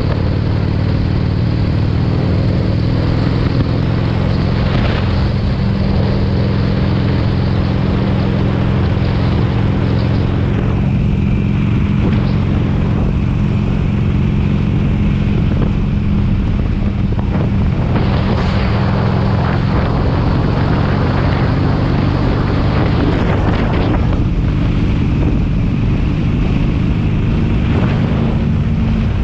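2007 Harley-Davidson Sportster 883 Custom's air-cooled V-twin running steadily at cruising speed, heard from the rider's helmet with wind rushing over the microphone.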